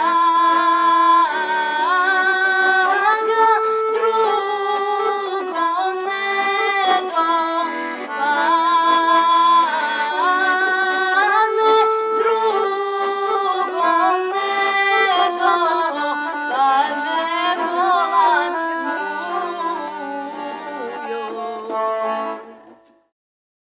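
Women singing a traditional Bosnian folk song to piano accordion accompaniment; the music ends shortly before the close.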